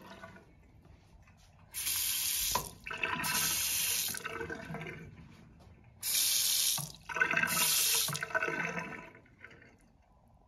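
A two-handle lever faucet is turned on and off twice, water running into the sink basin. Each time a short hissing spurt is followed by a couple of seconds of running water.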